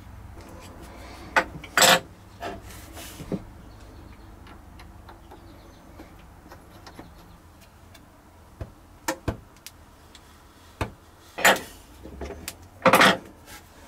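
Brass plumbing fittings and a steel wrench clicking and knocking as a fitting is tightened and threaded by hand onto a braided faucet supply line. The sharp clicks come in scattered clusters, the loudest near the start and near the end.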